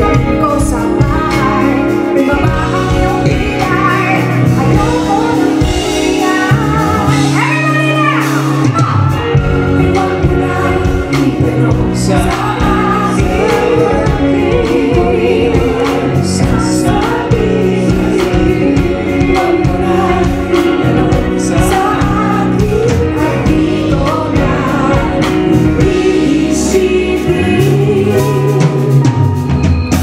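Live concert music: a female singer singing into a microphone over a full band with drums.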